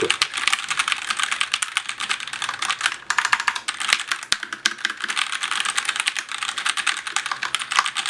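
Fast typing on a Razer BlackWidow Lite TKL mechanical keyboard with orange switches: a rapid, unbroken clatter of keystrokes, pretty loud.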